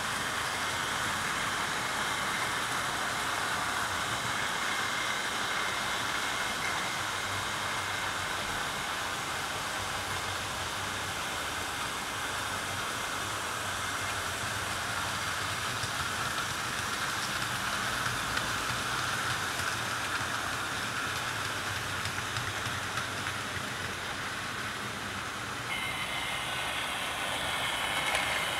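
OO gauge model trains running: a steady whirr of their small electric motors and wheels rolling on the rails, which changes tone about three seconds before the end.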